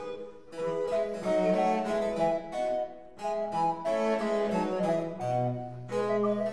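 Background music in a baroque style, led by quick plucked harpsichord notes in runs and chords, with a low held bass note coming in near the end.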